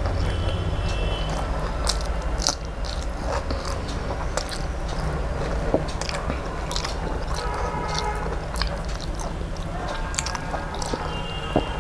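Close-up chewing and mouth sounds of a person eating rice and curry by hand: wet smacks and many short irregular clicks as the mouthful is chewed.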